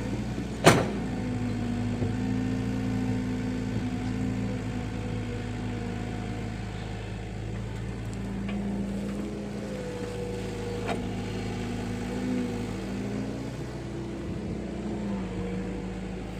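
Excavator's diesel engine running steadily, its pitch stepping slightly now and then, with a sharp knock under a second in and a fainter click about eleven seconds in.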